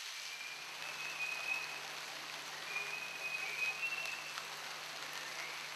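Steady rain falling, an even hiss of drops with a low steady hum beneath. Two faint, thin, high whistling tones sound briefly, about a second in and again about three seconds in.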